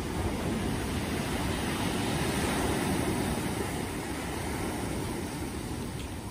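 Sea surf breaking and washing up a pebble beach, swelling to its loudest about halfway through and then easing.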